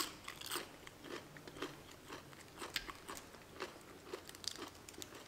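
A person chewing food close to the microphone, with small irregular crunches and mouth clicks about two or three times a second.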